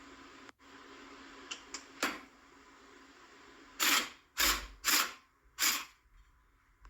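Hand tools working on a BMW X5's front brake assembly: a few light metal clicks, then four short, loud rasping strokes about half a second apart.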